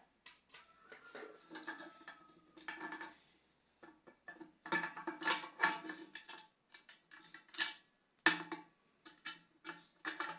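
Metal clinking and scraping as a handle is screwed onto a pressure-cooker pot with a screwdriver: a run of small knocks and clicks, many followed by a short ringing note from the pot.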